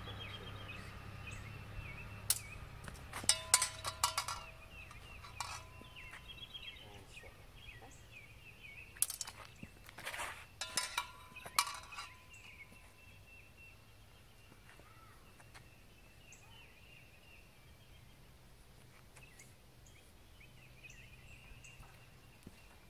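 Steel swords clashing against each other and against steel bucklers: quick clusters of metallic clanks that ring briefly, the loudest about three to four seconds in and again from about nine to twelve seconds in. Birds chirp faintly in the background.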